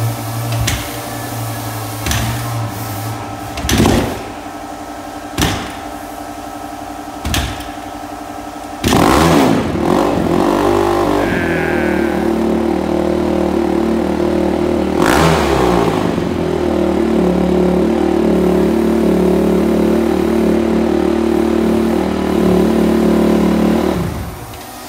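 Freshly rebuilt 2004 Honda CRF250X four-stroke single-cylinder dirt bike engine, choke on, kicked over several times, each stroke a sharp thud. About nine seconds in it catches and runs at a fast choked idle, revved up twice, then cuts off just before the end.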